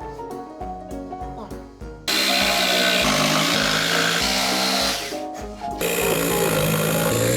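Light piano-and-vibraphone background music, then a power tool starts abruptly about two seconds in and runs loud and steady for about three seconds. It pauses briefly and runs again.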